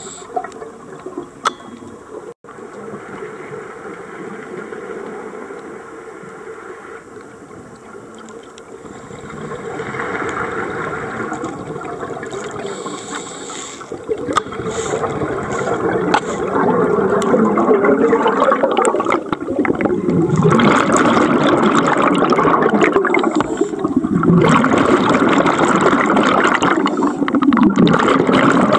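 Scuba regulator exhaust bubbles gurgling and rushing past an underwater camera. The bubbling grows louder about halfway through and comes in long bursts, one per exhalation, near the end.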